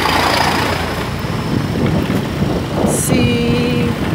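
Wind rushing over the microphone of a moving scooter, with the scooter's engine and a truck close alongside as it rides past. About three seconds in, a short steady tone sounds for just under a second.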